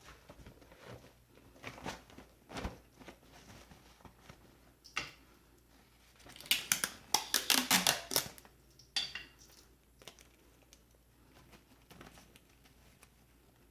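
Close-up handling sounds: scattered light taps and clicks, then a burst of crinkling for under two seconds about six and a half seconds in.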